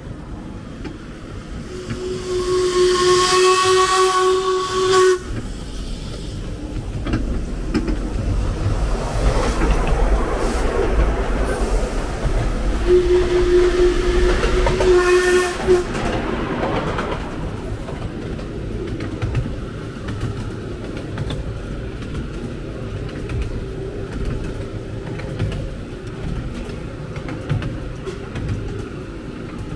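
Miniature steam locomotive sounding its whistle twice, each blast about three seconds long, with a spell of hissing between and around the blasts and the low rumble of the running train.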